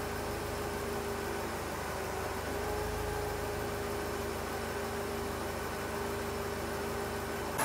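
Mercedes CLK230 Kompressor's engine idling, a steady hum with a low rumble and a faint held tone, heard from inside the car.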